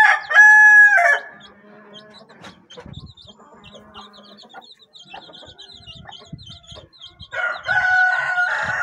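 A rooster crowing twice, the first crow finishing about a second in and the second starting near the end, with chicks peeping faintly and steadily in between.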